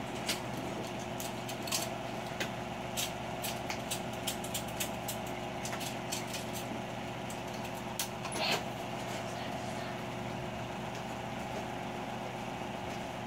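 Rubber full-hood gas mask being pulled on over the head and adjusted: scattered short clicks and rustles, with a louder rustle about eight seconds in, over a steady mechanical hum in the room.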